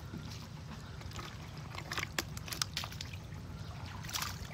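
Water sloshing and trickling, with a few light splashes about two seconds in and again near the end, over a low steady rumble.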